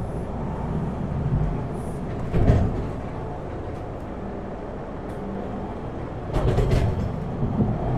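Toronto subway car running on the rails, heard from inside the car: a steady rumble with a louder knock about two and a half seconds in and a cluster of clicks and rattles near the end as it runs into High Park station.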